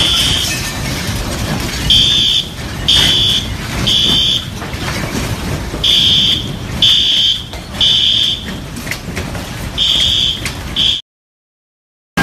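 Fire alarm beeping in the three-beep temporal evacuation pattern: half-second high tones a second apart in groups of three, with a pause between groups. It cuts off abruptly near the end.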